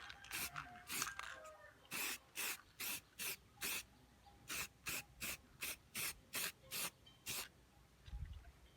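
Aerosol spray-paint can hissing in a quick series of short bursts, about fifteen of them, mostly two to three a second, while paint is sprayed onto an exhaust pipe. The bursts stop near the end.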